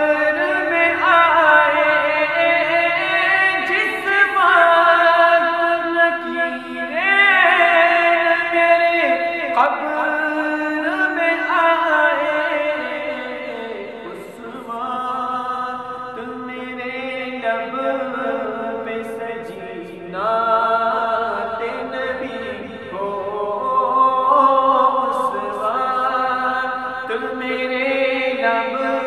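A man's voice singing a naat, Islamic devotional poetry, in long drawn-out phrases that glide between held notes, over a layered vocal backing.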